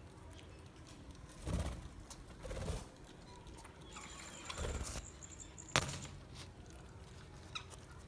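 Budgerigars calling now and then: a few short chirps among brief rustling bursts, with a sharp click a little before six seconds in.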